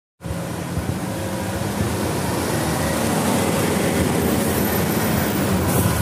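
Tour coach's diesel engine running steadily, a continuous low-pitched engine noise.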